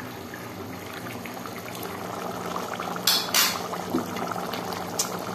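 Pot of keema aloo curry bubbling steadily at a boil, with two sharp clatters of a metal spoon against the pot about three seconds in and a single click near the end.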